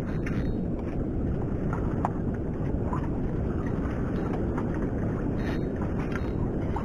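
Steady wind buffeting the microphone, a constant low rush, with a few faint light ticks scattered through it.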